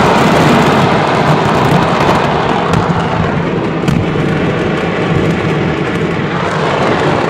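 A chain of explosions going off without pause: a dense, loud crackling packed with sharp bangs and a heavy low rumble.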